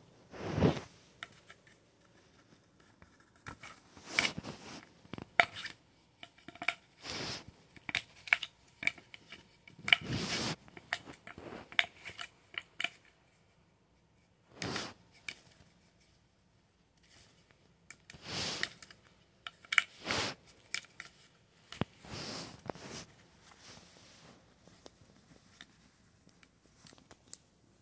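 Kitten play on a bed: bedding and fabric rustling and scratching in irregular bursts, with small clicks and scrapes and quiet gaps between.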